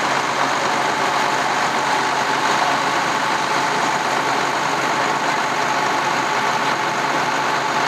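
An engine running steadily at idle, with no change in speed or load.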